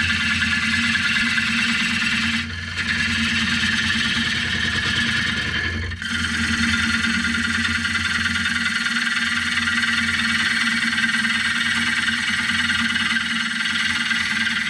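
Wood lathe spinning a zebrawood platter while a gouge cuts it: a steady motor hum under a hissing cutting noise. The sound dips briefly about two and a half seconds in and again at about six seconds.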